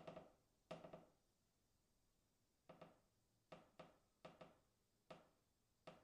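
Wooden beam creaking faintly, as if heard from a distance: about eight short, separate creaks, some coming in quick pairs, each fading away quickly.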